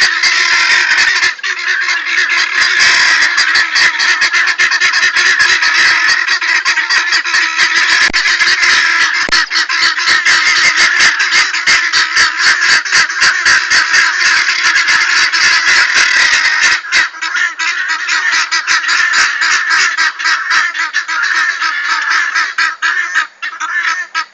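A flock of helmeted guineafowl calling loudly together, a dense clatter of rapid, harsh, repeated calls that thins out in the last few seconds.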